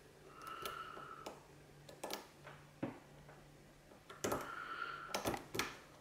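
Light metallic clicks and short scrapes of a lock pick working the pins of a Mul-T-Lock pin-in-pin padlock core under a tension wrench. There is one burst of scraping about half a second in and a denser run of clicks from about four to five and a half seconds in.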